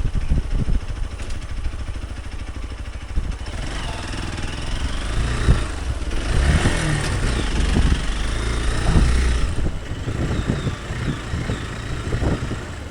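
Hero Xpulse 200 Pro's single-cylinder engine running while ridden over a rough off-road track, its revs rising and falling with the throttle.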